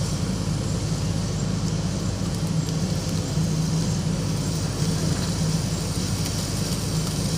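Excavator's diesel engine running steadily, a low even drone.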